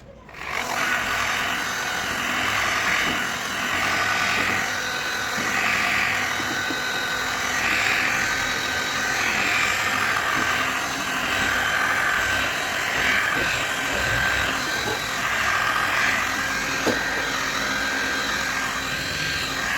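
A power tool starts abruptly and runs steadily, swelling and easing about every second and a half.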